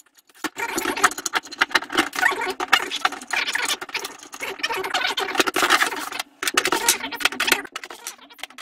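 Close handling noise: rustling and scratching with many small clicks as gloved hands handle the heater's power leads, ring terminals and alligator clips and lift the small 12 V heater.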